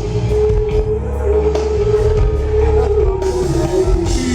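Live R&B band playing a slow vamp: one long held melodic note, dipping slightly in pitch near the end, over a steady heavy bass, in a large venue.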